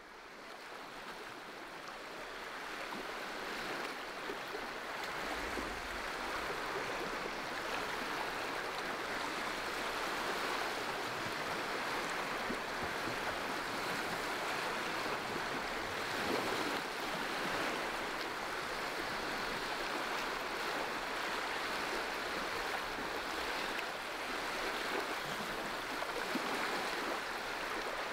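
Steady wash of lake water on the shore, fading in over the first few seconds and then holding even.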